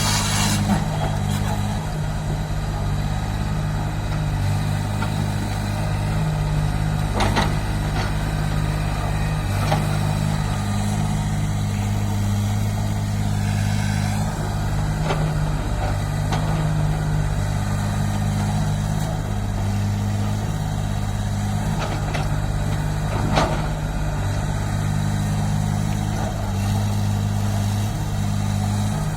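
Excavator's diesel engine running steadily, its pitch stepping up and down a little as it works, with three sharp knocks.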